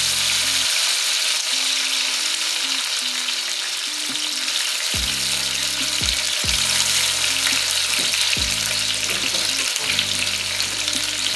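Sliced tomatoes frying in hot oil, a steady sizzling hiss.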